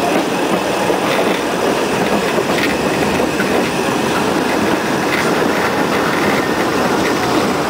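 Small narrow-gauge park railway train running along its track, a steady noise of wheels on rail heard from an open passenger carriage.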